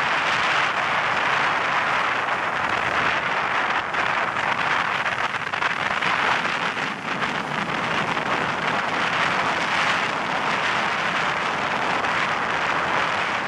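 Wind rushing past the microphone at an open window of a moving diesel-hauled passenger train, over the train's running noise: a loud, steady rush.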